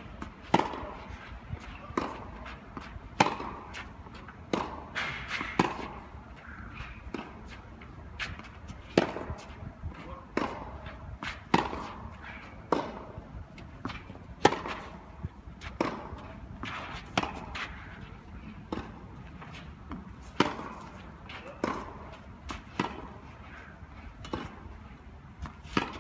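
Tennis ball struck by rackets in a steady practice rally on a clay court, a sharp pock about every second or so, with fainter ball bounces in between.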